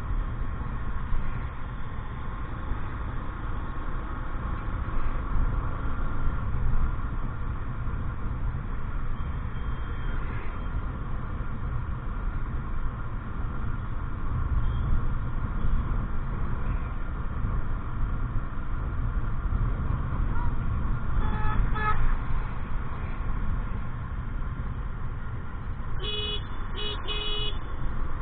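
Vehicle horn honking over a steady low rumble of road traffic: a couple of short beeps about three-quarters of the way through, then three quick honks near the end.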